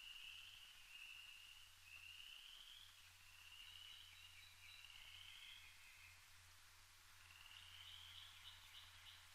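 Faint, distant frog chorus: high trills about a second long, one after another, with a short pause about six seconds in, over a low steady hum.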